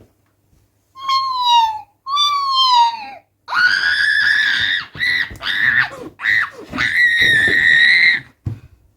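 A child's high-pitched screaming: two short cries that fall in pitch, then long, shrill, sustained screams broken by brief gaps.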